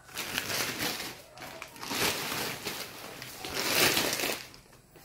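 Clear plastic wrapping crinkling as a heap of secondhand clothes is pushed and pulled about, in three rustling bursts, the loudest about four seconds in, dying away near the end.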